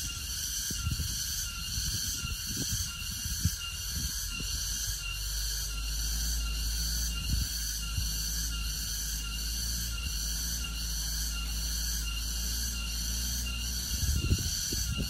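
Insects calling in a steady high-pitched chorus that pulses about twice a second, over the low drone of a small truck's engine as it pulls a heavy load of sugarcane along a muddy track.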